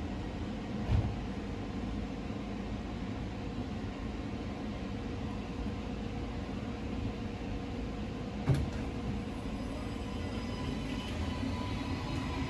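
Alstom Citadis light-rail tram running, a low rumble under a steady hum, with a short knock about a second in and another at about eight and a half seconds.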